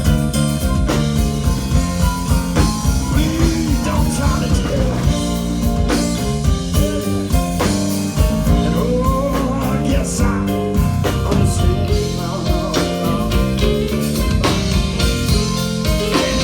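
Live blues band playing, with the drum kit keeping a steady beat under a lead line of bending notes.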